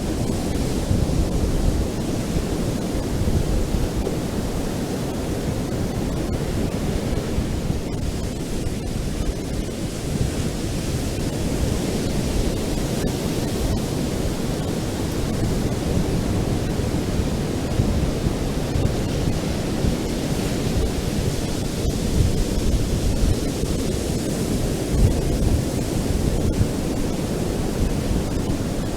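Ocean surf on a beach: a steady, dull rumble of waves without distinct breaks.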